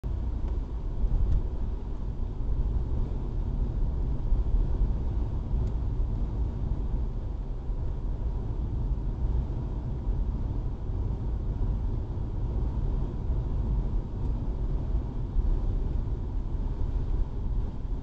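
A car driving at moderate speed, heard from inside the cabin: a steady low rumble of engine and tyres on the road, with a few faint ticks.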